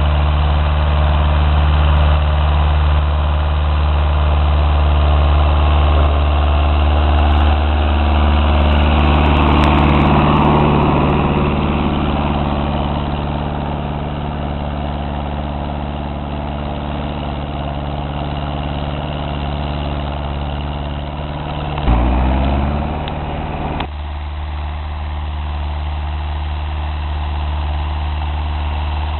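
Ursus C-360 tractor's four-cylinder diesel engine running steadily. About three-quarters of the way through, its note shifts with a brief loud swell, and it then runs on quieter.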